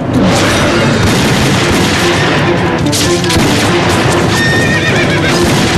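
Film battle soundtrack: rapid, overlapping gunfire from pistols and rifles over dramatic music, with horses galloping.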